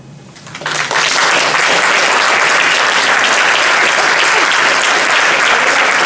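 Audience applauding, building up within the first second and then going on steadily.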